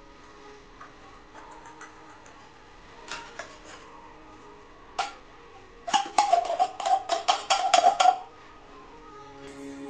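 An opened metal can of corned beef knocked against a stainless steel pot to shake the meat out. A few scattered clicks come first; then, a little past halfway, a quick run of metallic taps rings for about two seconds, about five a second, and is the loudest part.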